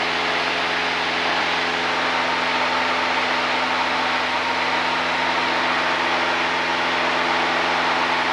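Cessna single-engine light aircraft's piston engine and propeller running steadily in cruise, with wind rush, heard from inside the cabin.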